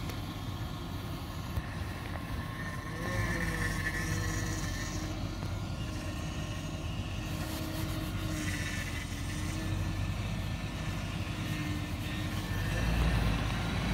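Range Rover L322 running at low revs as it crawls slowly over a rocky dirt trail, heard from outside the vehicle; the steady, low engine note grows louder near the end as the SUV draws closer.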